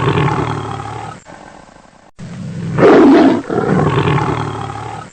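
Tiger roaring: a long roar fades out, then after a brief gap about two seconds in the same sequence plays again, a short loud roar followed by a longer one that fades away.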